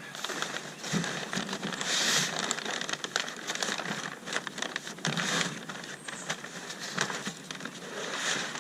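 Packing material rustling and crinkling, with many small crackles and clicks, as an item is unwrapped by hand.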